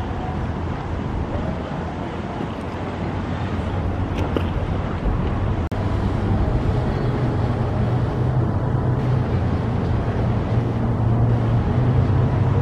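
Motorboat engines running as boats pass, with wind on the microphone. First comes a bowrider; after a cut about six seconds in, a center-console boat's Yamaha outboard motor runs with a steady low hum.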